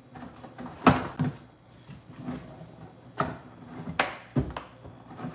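About five sharp, light knocks and taps as toy play food and utensils are handled and set down on the top of a cardboard box.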